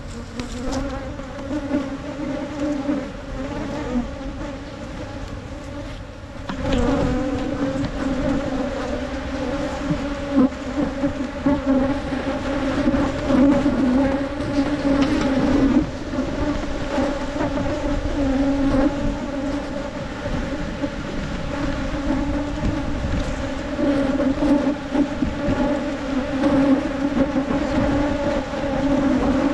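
A colony of wild honey bees buzzing in a steady, dense hum around their exposed comb as their ground nest is dug out. The hum gets louder about six and a half seconds in.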